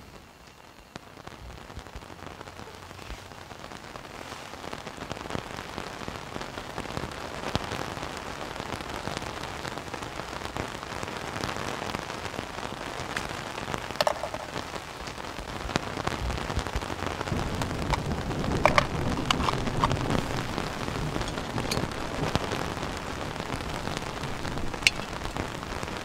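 Rain falling on the tent and grass, getting steadily heavier, with a few sharp clicks and taps from a screw-on gas canister being handled, mostly in the second half.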